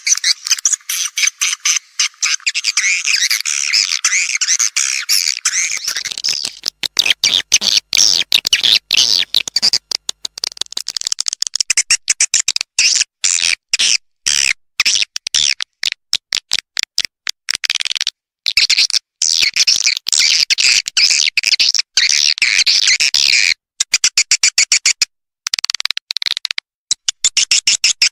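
Swiftlet lure call ('suara panggil') for a swiftlet house: dense, high-pitched chirping and twittering of edible-nest swiftlets, played back to attract the birds to nest. About six seconds in, the continuous twittering breaks into rapid chopped chirps with short pauses.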